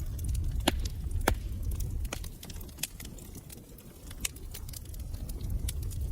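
Wood fire in a fireplace crackling: scattered sharp crackles over a low rumble of the flames, which fades for a few seconds mid-way and then comes back.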